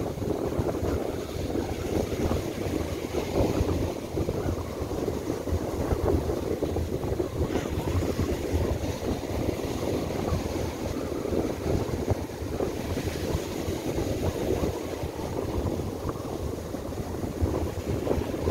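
Gusty gale-force wind buffeting the microphone in an uneven rumble, over the wash of surf breaking on a sandy beach.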